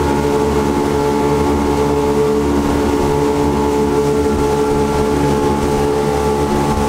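Motorboat engine running steadily at speed, heard from on board, holding one even pitch over a constant rush of wind and water.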